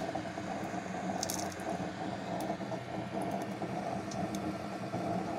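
A homemade used-cooking-oil stove burning under a wok, its blower-fed flame making a steady rushing noise. A few light ticks and crackles sound over it, the clearest cluster about a second in.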